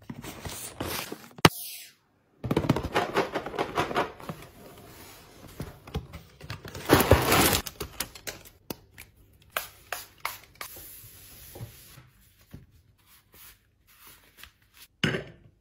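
Close-up packing sounds: plastic and foil wrappers crinkling and rustling, and scissors cutting through a clear plastic bag, with scattered light taps and clicks in the second half.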